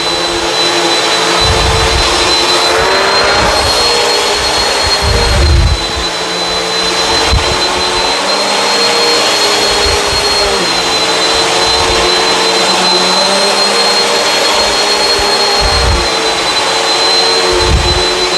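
Bissell CleanView Swivel upright vacuum running steadily on carpet: a motor whine with the brush roll agitating the carpet pile. Low thumps come now and then throughout.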